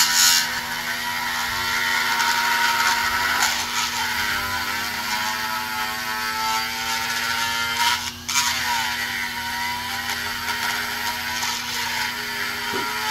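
Flex-shaft rotary grinder with a burr cutting the aluminum poured into the EGR port of a cast iron Oldsmobile cylinder head: a running motor whine whose pitch repeatedly sags and recovers as the bit bites, over a gritty cutting hiss. There is a short break about 8 seconds in.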